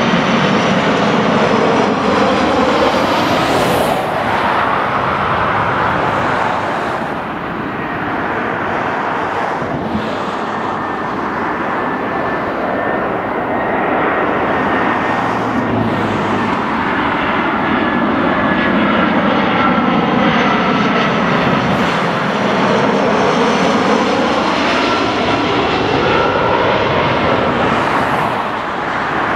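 Two Airbus narrow-body jet airliners on final approach passing low overhead in turn: first a Tarom Airbus A318, then an Air France Airbus A319. Each is a loud rush of jet noise with a steady engine whine, its tone sweeping down and back up in a phasing swoosh as the aircraft passes over.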